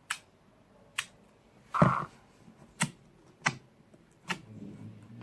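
Slime being squeezed and poked for ASMR, making sharp clicks and pops about once a second, the loudest a fuller pop near two seconds in.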